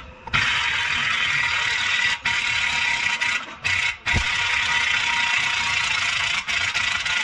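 Loud steady hiss, broken by short gaps about two, three and a half, and four seconds in.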